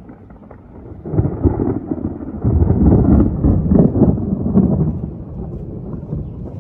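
Rolling thunder: a low rumble that swells about a second in, is loudest through the middle with crackling peals, and eases off near the end.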